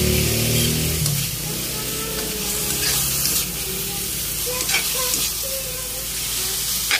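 Pork sizzling as it is stir-fried in a steel wok and turned with a metal spatula, which clinks against the pan a couple of times in the second half. A low hum fades away about a second in.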